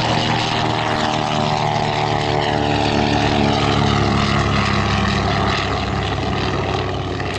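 Grumman TBM Avenger's Wright R-2600 twin-row radial engine and propeller running at power in a low flyby, the pitch sliding steadily down as the plane passes and the sound easing slightly near the end.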